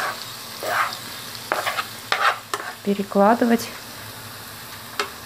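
A wooden spatula scrapes and knocks against a nonstick frying pan while fried baby octopus is shovelled out onto a plate, over a light sizzle from the hot food. The scrapes come in short spells, and a brief voice-like hum sounds about three seconds in.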